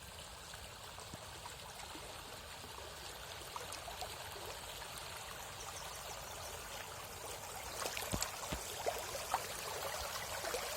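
River water flowing steadily, with a few short sharp sounds about eight seconds in.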